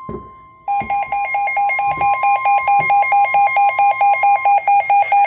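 Weather alert warning tones: a steady tone near 1 kHz, the warning alarm tone, that stops about four seconds in. Under a second in, a loud pulsing alert beep of about three beeps a second starts over it and keeps going.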